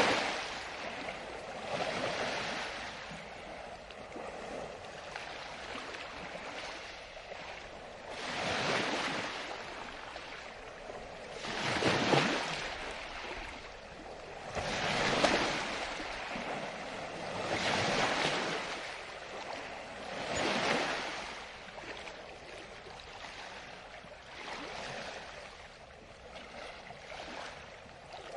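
Water waves washing in: a swell of rushing water noise every few seconds over a steady wash, the swells weaker in the last several seconds.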